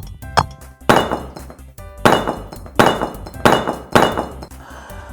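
Hammer blows breaking up hardened concrete: about five heavy crashing strikes, each followed by a spray of crumbling, clinking debris, over background music.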